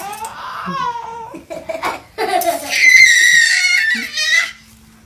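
A small child's voice with short squeals and laughing sounds, then a loud, high-pitched shriek held for over a second about three seconds in.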